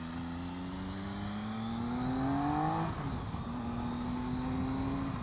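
Triumph Speed Triple 1050's inline three-cylinder engine accelerating under load: the revs climb for about three seconds, fall sharply at an upshift, then climb again, with another shift near the end.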